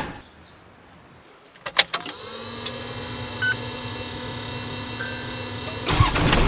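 A car engine, likely the Toyota Land Cruiser 70, starts up after a few knocks and settles into a steady idle about two seconds in. Music comes in near the end.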